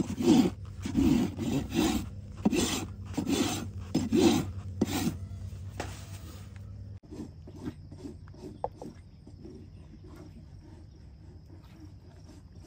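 Farrier's hoof rasp filing the wall of a horse's hoof in quick scraping strokes, about two a second, stopping about five seconds in.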